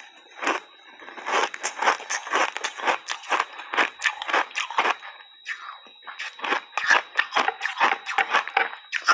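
Close-up chewing of thin ice chips coated in milk and matcha powder: a rapid run of crisp crunches, about four or five a second, with a brief lull about midway.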